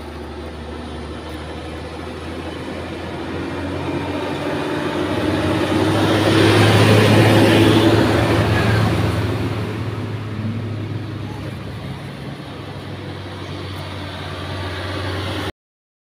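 A heavy dump truck driving past on the road: its engine and tyre noise build over several seconds, are loudest about seven seconds in, then fade away.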